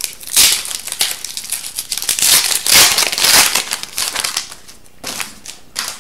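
Foil wrapper of an Upper Deck hockey card pack crinkling as it is torn open and the cards are pulled out. Loudest from about two to three and a half seconds in, then quieter toward the end.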